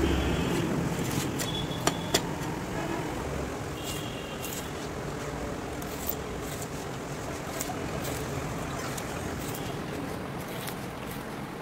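Steady road-traffic noise, with sharp clicks from a knife and steel tongs working a truck tire's rubber tread; the two loudest clicks come about two seconds in.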